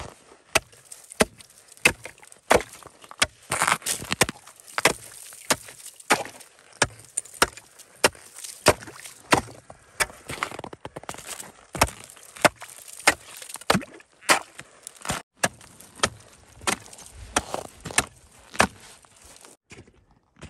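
A long run of sharp chopping strikes, roughly one or two a second and uneven in strength.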